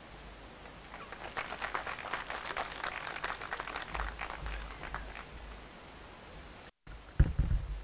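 Audience applause: scattered hand clapping that starts about a second in and dies away after about five seconds. Near the end, a brief low thud.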